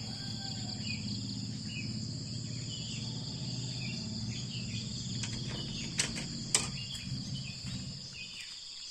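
Insects, crickets among them, chirring in two steady high tones, with short chirps repeating below them. A low pulsing hum fades out near the end, and two sharp clicks come about six and six and a half seconds in, the second the loudest.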